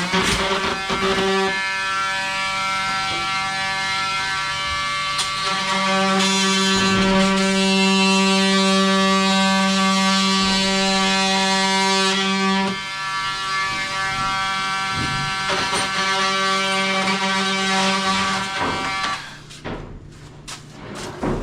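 An electric motor in a power tool or shop vacuum runs steadily with a high hum over a hiss for about nineteen seconds, then stops.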